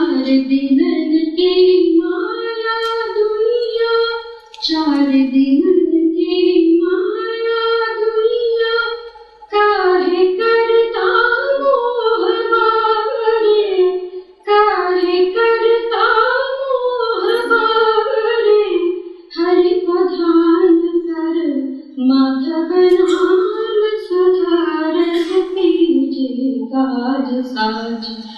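A woman singing solo into a microphone, long held notes that slide up and down in pitch, in phrases of about five seconds broken by short breaths. No instrument is heard with her.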